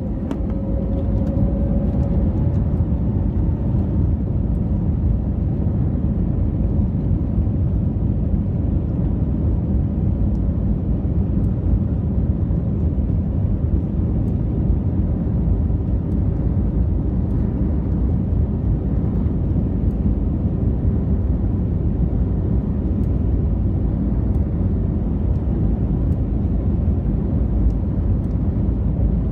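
Loud, steady rumble of an Airbus A321neo's jet engines and airflow heard inside the passenger cabin, with a faint rising whine in the first two seconds as the noise steps up.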